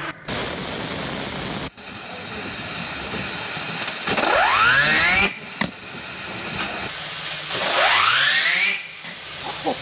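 Loud hiss of a 60,000 psi waterjet cutter's jet striking the edge of a steel saw-blade-shaped fidget spinner. The spinner spins up with a rising whine, heard twice.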